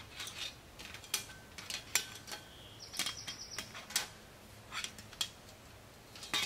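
Small metal camping gear being handled and set up on a little folding table: a run of irregular clicks, clinks and light rattles, some ringing briefly.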